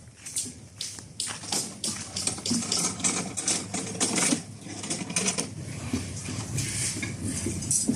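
Irregular clattering and knocking from construction work, many short hits close together, over a low hum.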